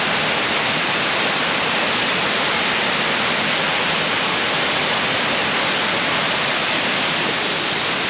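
Waterfall: a steady, unbroken rush of falling water, even in level and heavy in the hiss range.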